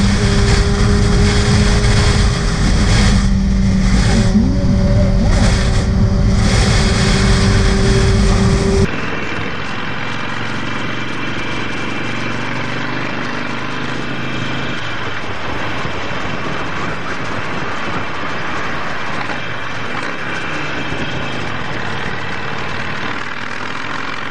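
Motorcycle ride noise from a helmet camera at road speed: wind rushing over the microphone with a steady engine drone. About nine seconds in it cuts abruptly to a different motorcycle's quieter ride, mostly wind and road noise.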